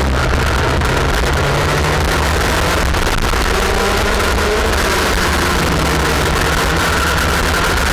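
IAME X30 125cc two-stroke kart engine running hard, heard from on board the kart, its pitch stepping up and down a little as the revs rise and fall.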